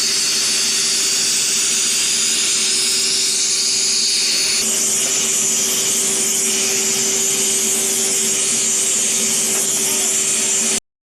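Eureka Forbes Euroclean X-Force 1400-watt vacuum cleaner motor running steadily in blower mode, with a loud rush of air over a steady hum. The air noise changes character about four and a half seconds in.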